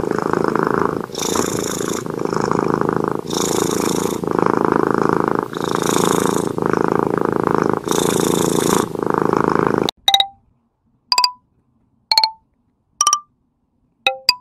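Domestic cat purring loudly and close, the rumble swelling and easing in a steady cycle of about one every second and a half. About ten seconds in it cuts off, and a few sparse single music notes follow.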